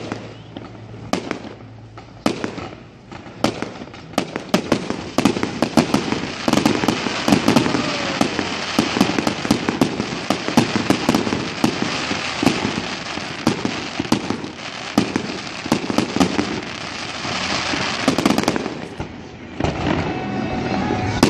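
Fireworks display: scattered bangs at first, thickening from about four seconds in to a dense barrage of overlapping bangs and crackle, with a brief lull near the end.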